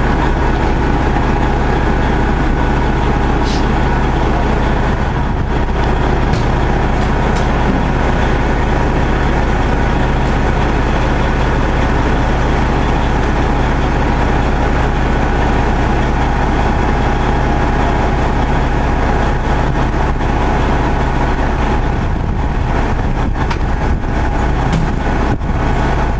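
Heavy truck diesel engine running steadily, a deep even rumble.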